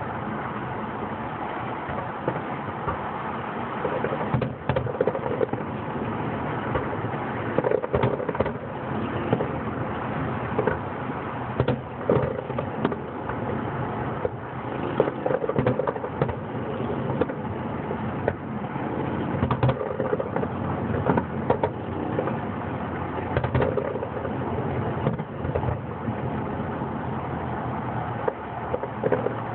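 Distant fireworks going off: irregular sharp pops and louder bangs every second or few, over a steady background rumble.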